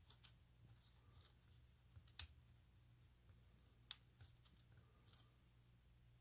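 Faint, scattered clicks and taps from the wooden parts of a laser-cut plywood model truck being worked by hand, with two sharper clicks about two and four seconds in.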